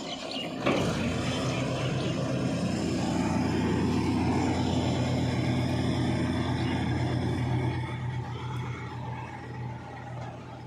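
An engine running steadily, loudest in the middle and easing off near the end, with a sharp clatter about a second in.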